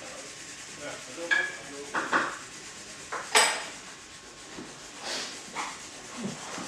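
A few short clinks and taps from hands and a pencil working on cello strings at the nut, the loudest about three and a half seconds in.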